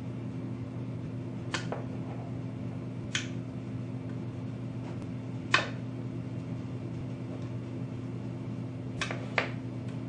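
Five sharp clicks of hard styrene plastic model-kit parts being trimmed and handled: the loudest a little past halfway, and two in quick succession near the end. A steady low hum runs underneath.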